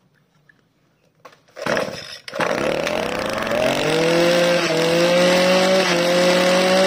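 Kioritz Echo 2430 brush cutter's 24cc two-stroke engine being pull-started. After a short pull about two seconds in, it catches, revs up over the next second or two, and settles into a steady high-pitched run whose pitch creeps slowly upward.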